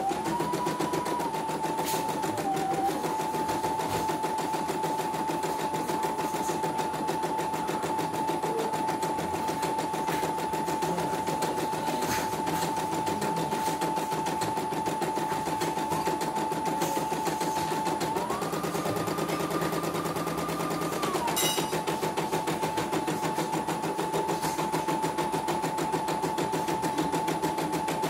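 CNY computerized embroidery machine stitching a design: a rapid, steady needle clatter over a motor whine that steps up in pitch for about three seconds roughly two-thirds of the way through, then drops back. This is a test run after repair of a system error, and the machine is running smoothly with no trouble.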